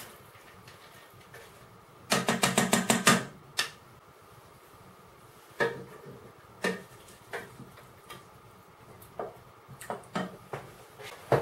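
Wooden spoon and a container knocking against a stainless steel saucepan as dried soup mix is tipped in and stirred. A quick run of about ten rapid taps comes about two seconds in, then scattered single knocks.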